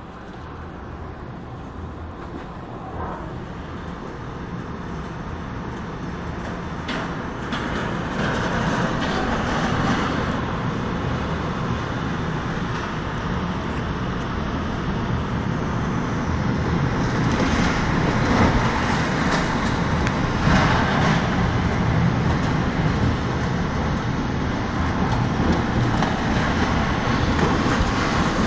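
Tornado wind roaring against a building, a dense steady roar that grows louder throughout as the tornado closes in. Stronger gusts come in a little past the middle, with rain driven against the window glass.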